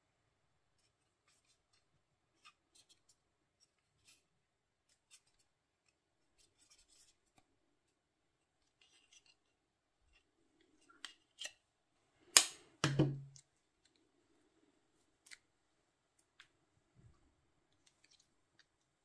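Small plastic earbuds and their charging case being handled: scattered light clicks and rustles as the case is opened and protective film is peeled from the earbuds. The loudest moment is a sharp click followed straight away by a knock, about two-thirds of the way in.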